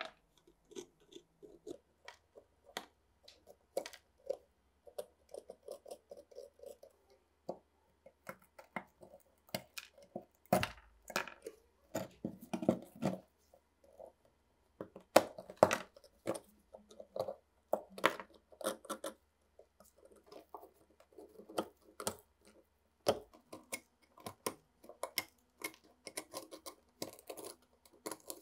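A metal pick scraping and breaking away crusty white-and-green deposits encrusted on an old rusty pepper grinder: irregular crunches, crackles and scrapes.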